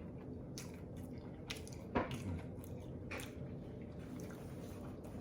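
Quiet eating sounds: a few short, wet mouth smacks and clicks from people chewing burgers, the loudest about two seconds in.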